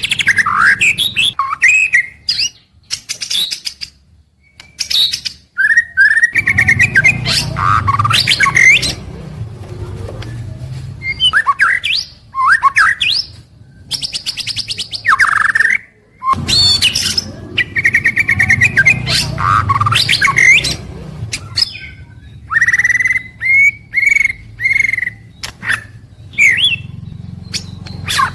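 White-rumped shama (murai batu) singing a varied song of loud whistles, fast trills and harsh chattering notes, in phrases broken by short pauses.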